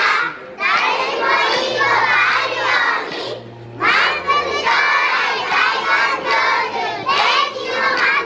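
A group of young children chanting loudly in unison, in phrases broken by short pauses about half a second in and again about three and a half seconds in.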